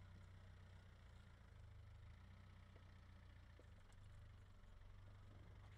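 Land Rover Discovery's 300Tdi turbodiesel engine running at low revs, a faint steady low hum, as the truck crawls slowly through deep ruts.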